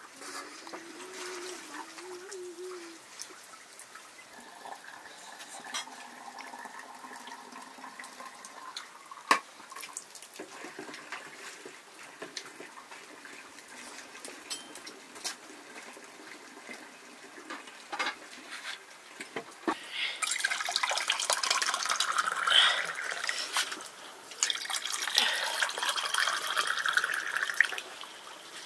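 Water pouring and splashing, in two spells of a few seconds each in the latter part, with scattered knocks earlier.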